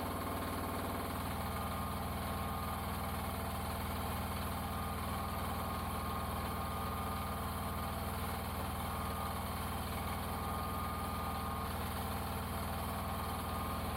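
NM-E08 mini excavator's engine running steadily at a constant speed, with a slight change in tone about a second in.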